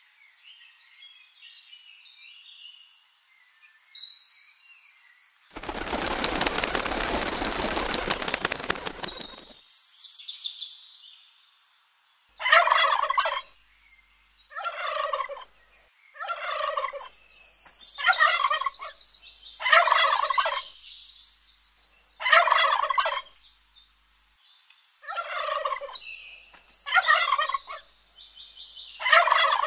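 Wild turkey tom gobbling over and over, about nine rattling gobbles a couple of seconds apart through the second half. Earlier there is a loud rushing noise lasting about four seconds.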